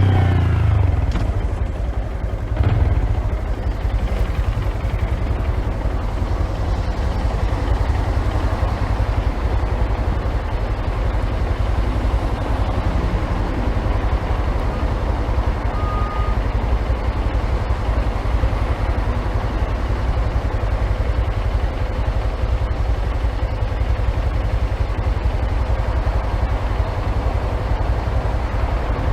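Honda Grom's 125cc single-cylinder four-stroke engine coming down from a rev in the first second, then idling steadily, picked up muffled by a phone in a pocket.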